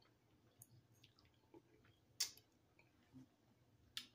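Quiet eating sounds over near silence: a few sharp clicks and smacks of someone chewing instant noodles and working a metal fork in the noodle cup, the loudest click about halfway through and another near the end as the fork goes back into the cup.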